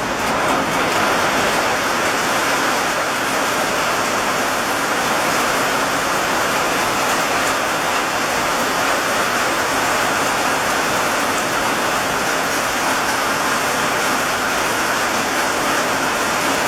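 Rain pouring down steadily, a dense even hiss that swells slightly right at the start.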